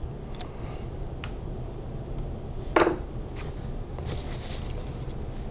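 Plastic cap being twisted and pried off a new bottle of nail polish remover: a few sharp small clicks and handling sounds, with one brief louder higher-pitched sound about three seconds in.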